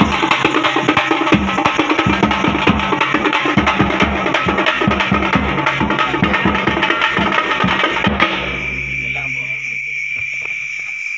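A band of festival drums played with sticks, beating a fast, dense rhythm that stops abruptly about eight seconds in. A steady high tone over a low hum follows.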